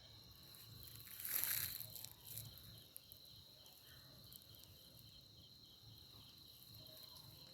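Faint night insects chirring steadily in a high, thin pulsing drone, with a brief rustling scuff about a second and a half in.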